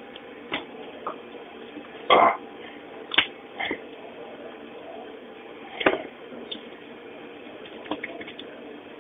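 A knife knocking and scraping against a hard cheese wheel and the counter as the wheel is cut, in a run of irregular sharp clacks. The loudest comes about two seconds in, and they play over a steady background hum.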